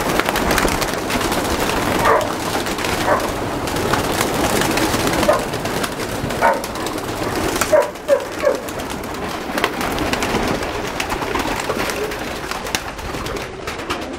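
A loud chorus of many domestic pigeons cooing at once, a dense, unbroken din of overlapping calls, with a few short sharp sounds scattered through it.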